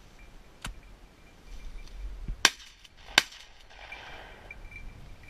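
Two sharp shotgun reports about three-quarters of a second apart, preceded by a fainter crack about two seconds earlier.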